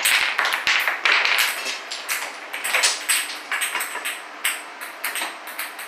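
Wooden Jenga blocks toppling in a chain reaction: a run of quick wooden clacks and taps as blocks knock into each other and fall onto the table.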